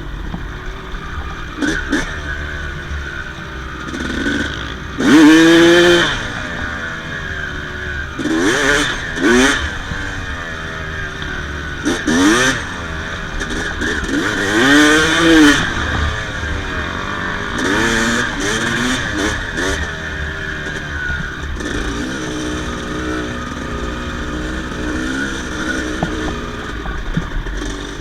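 Yamaha YZ250 two-stroke single-cylinder dirt bike engine revving, its pitch rising and falling in about six surges, the loudest about five seconds in, with steadier running in between.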